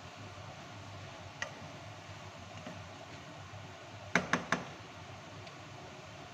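Wooden spatula stirring chunks of potato, eggplant and tomato in a ceramic-coated pan, then knocked against the pan three times in quick succession about four seconds in, three sharp taps.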